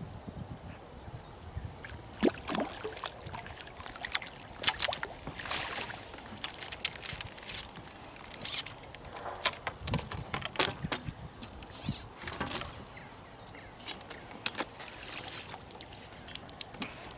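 Water splashing and sloshing in short sharp bursts as a hooked fish thrashes at the surface and is drawn into a landing net; water streams off the net as it is lifted near the end.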